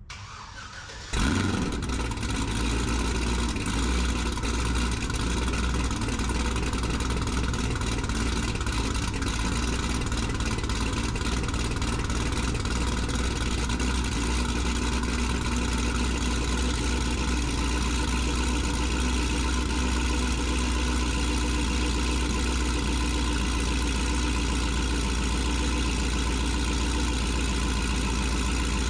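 Cadillac CTS-V wagon's supercharged 6.2-litre V8 starting abruptly about a second in, then idling steadily with a deep, even rumble.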